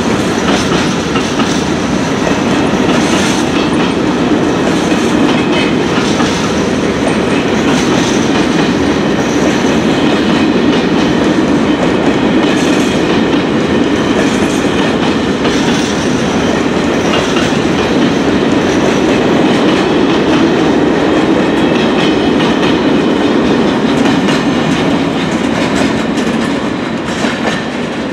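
Long freight train of covered wagons passing, a steady rumble of wheels on rails with clicking over the rail joints.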